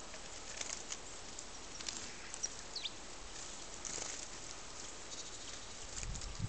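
Small birds giving short, high chips and calls, with one falling call about three seconds in.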